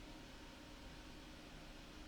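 Near silence: the recording's faint steady hiss with a low hum underneath, and no other events.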